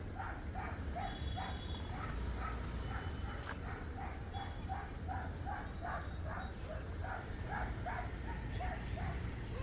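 A dog barking over and over in short, quick barks, about three a second, over a steady low rumble.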